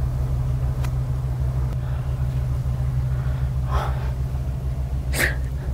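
A steady low rumble, with two short breathy exhalations from a person near the end.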